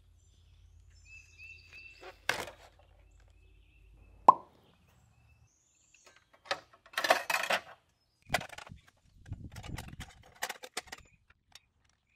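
Hand work on a miter saw during a blade change: a sharp knock about four seconds in, then irregular bursts of clatter, clicks and scraping from handling the saw and the packaged blade. A few faint bird chirps come at the start.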